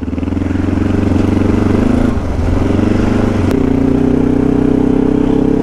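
Kawasaki KLE 500 parallel-twin motorcycle engine running under steady throttle on a muddy trail, with a brief dip in the engine note about two seconds in before it pulls on again at a steady pitch.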